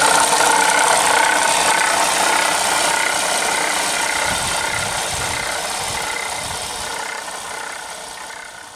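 2007–2013 Toyota Corolla engine running with a bad, steady whining noise from the engine bay, which the owner links to the water pump. The sound fades out gradually toward the end.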